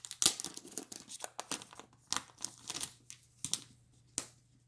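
Packaging on a comic book being opened by hand: irregular tearing and crinkling in short crackles.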